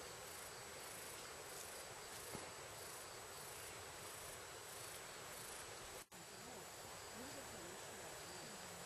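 High, regular insect chirping, about two pulses a second, over a steady outdoor hiss; the chirping stops around five and a half seconds in, and the sound briefly drops out just after.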